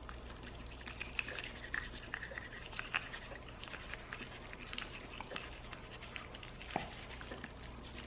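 A dog toothbrush scrubbing a Shih Tzu puppy's teeth: faint, irregular little clicks and scratches of the bristles against the teeth.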